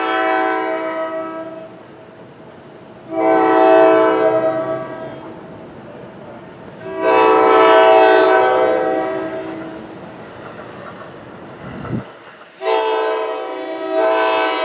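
Air horn of an approaching New Jersey Transit train sounding a series of blasts. Three are long, then a short one is followed by another long one, the long-long-short-long pattern blown for a grade crossing.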